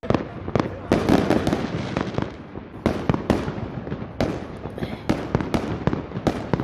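Fireworks and firecrackers going off in the street: an irregular, rapid string of sharp bangs and pops, several a second, with echoing rumble between them.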